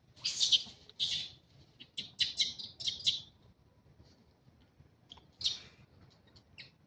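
Short, high-pitched chirping calls from an animal: two near the start, a quick run of about five a couple of seconds in, and a single call later.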